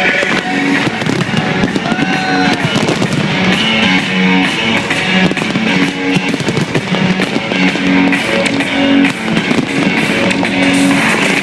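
Fireworks bursting and crackling in quick succession, with music with held notes playing through the bangs.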